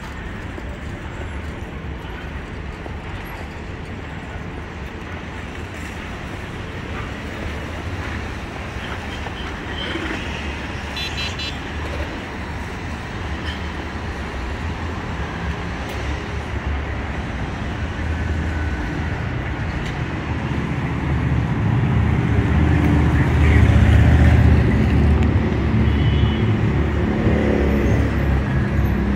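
Steady city street traffic noise from cars and trucks on a busy avenue, swelling to a low-pitched rumble about three quarters of the way through as a vehicle passes close, then easing off. A brief run of high ticks sounds near the middle.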